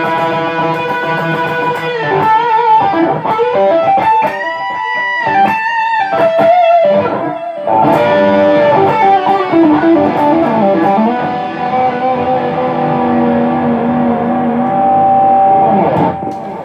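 Fender Custom Shop '63 relic electric guitar with Benson S-S-H pickups, played through a Moore Audio Red Truck distortion pedal and delay into a Fender Hot Rod Deluxe III tube amp. It plays an overdriven lead line of held, bent notes with vibrato, and the last note dies away near the end.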